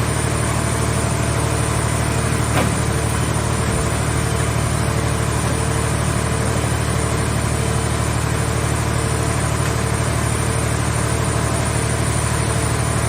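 Scrap car shell baler running: a steady low machine hum with a rapid even pulse, and a single knock about two and a half seconds in.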